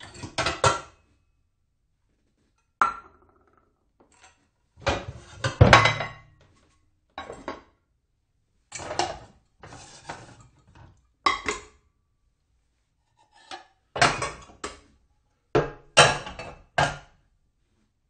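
Dishes being shuffled about, clattering and clinking in short bursts with silent pauses between them. The loudest burst, about six seconds in, includes a low knock.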